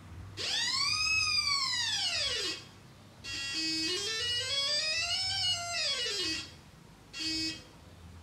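Buzzy electronic tone from a paper sound hat's circuit, sliding up in pitch and back down in a long swoop, then a second slower swoop, then a short steady note near the end.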